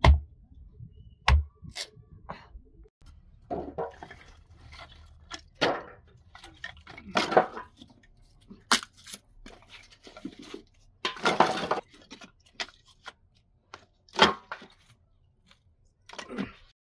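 Dry wooden sticks being snapped and broken by hand: irregular sharp cracks, with a couple of longer splintering, crackling stretches.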